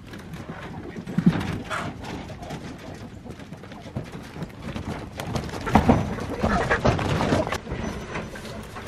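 A wheeled chickshaw chicken tractor being hand-pulled over dry stalks and brush: it clatters and knocks as it bumps along, boots crunch, and the hens inside squawk now and then, loudest about a second in and again around six to seven seconds.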